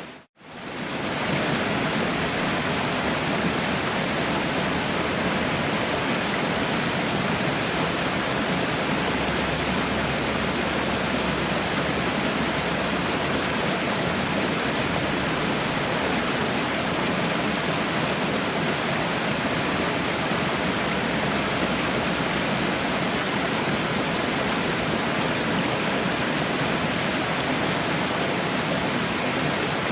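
Waterfall rushing steadily, an even wash of falling water. It cuts out for a split second near the start, then fades back in.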